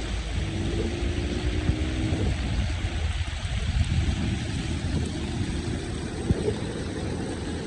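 Continuous rumble of a moving vehicle, road and engine noise with a steady hiss above it. A faint steady tone sounds for about two seconds near the start.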